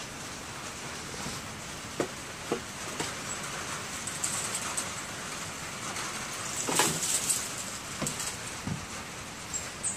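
A tipped-over metal bird feeder knocking and scraping against wooden deck boards as it is jostled: a few separate knocks, with a louder scraping rattle about seven seconds in, over a steady hiss.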